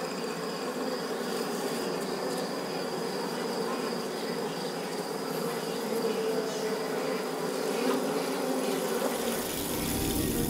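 Steady insect-like buzzing drone, part of an ambient sound design, with a faint high tone above it. A deep low swell starts to build near the end.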